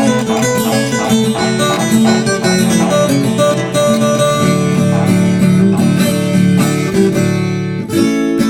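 Instrumental country-style music led by a plucked acoustic guitar picking a melody over a steady bass line, with no singing, introducing a sertanejo raiz song; the phrase changes about eight seconds in.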